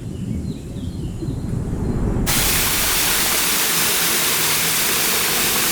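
A low rumble with a few faint chirps, then about two seconds in an abrupt change to the loud, steady rush of a waterfall heard close up.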